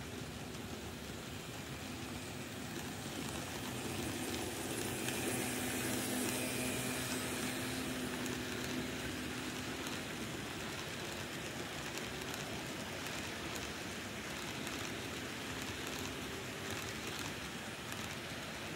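N scale model trains running, a steady whir of small motors and wheels rolling on rail. It swells for several seconds as a second train passes close.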